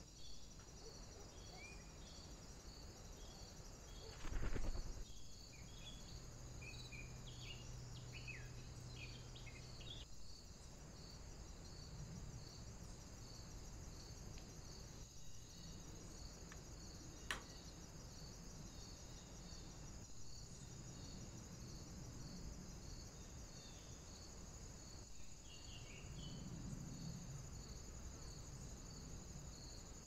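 A steady high-pitched insect trill pulsing about twice a second, with a few faint bird chirps in the first ten seconds and a single dull knock about four seconds in.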